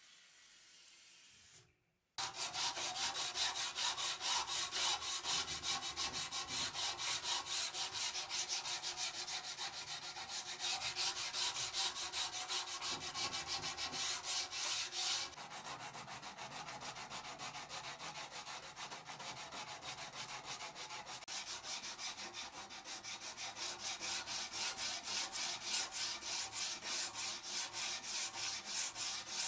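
Hand file stroking back and forth along a steel dagger blade, an even run of rasping strokes that starts about two seconds in and gets a little quieter about halfway through.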